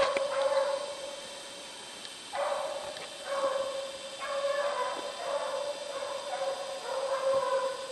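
A young rabbit dog baying on the trail of a rabbit, giving a string of drawn-out bays one after another with short gaps between.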